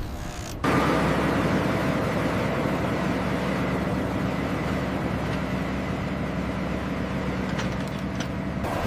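Steady engine drone with a low hum, starting suddenly about half a second in.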